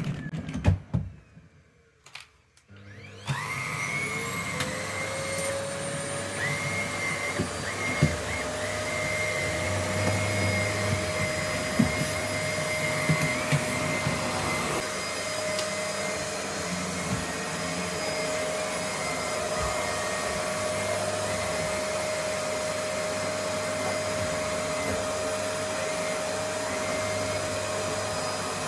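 Vacuum cleaner switched on about three seconds in: its motor spins up to a steady high whine and keeps running while it is pushed around, with a few sharp knocks along the way.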